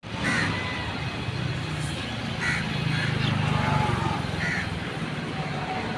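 A motor vehicle's engine running with a steady low rumble, while birds caw a few times.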